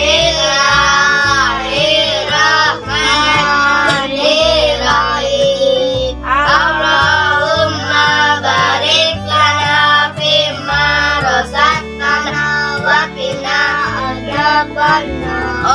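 Background music: a song with a high singing voice holding long notes over instruments and a steady bass line.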